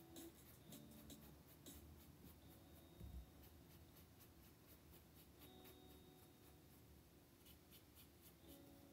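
Faint scratching and tapping of a paintbrush working acrylic paint onto a canvas in short strokes, with a soft low thump about three seconds in.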